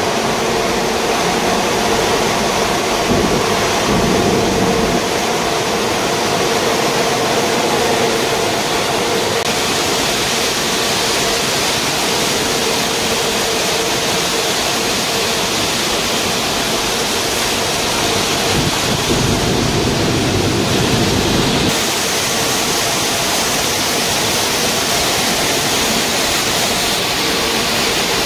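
Waste-tire rubber powder production line running: a loud, steady noise of grinding mills and conveyors, with a faint hum in the first part. The noise changes in character about ten seconds in and again about twenty-two seconds in.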